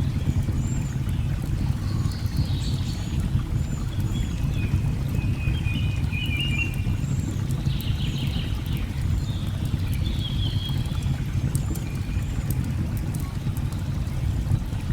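Layered nature ambience: the steady low rush of a waterfall, with scattered sharp crackles from a wood fire and birds calling over it, some in short high chirps and some in brief warbling phrases.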